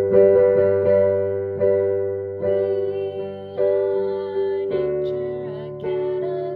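Piano playing the introduction of a song: sustained chords struck every second or so, each one fading away before the next.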